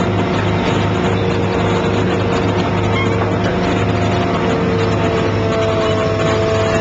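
Excavator diesel engine running steadily under load with a whine from its hydraulic pump, as the pile cutter's hydraulic cylinders press their chisels into a concrete pile.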